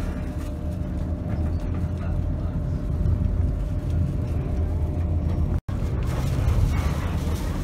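Bus engine running, a steady low rumble heard inside the bus cabin. The sound cuts out for an instant about five and a half seconds in.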